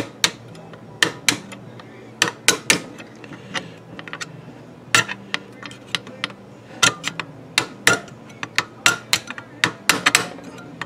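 A small hammer taps a steel locking tab into a Triumph TR250 rear brake backing plate: about twenty sharp, irregularly spaced metal taps and clicks, some ringing briefly, over a steady low hum.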